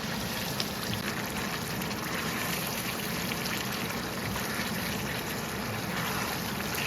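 Tomato and onion gravy for mutton karahi sizzling in the wok as it is stirred with a spatula: a steady hiss with a few faint spatula clicks.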